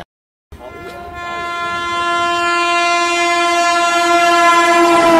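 Train horn sounding one long steady note that grows louder as the train approaches, dipping slightly in pitch at the very end.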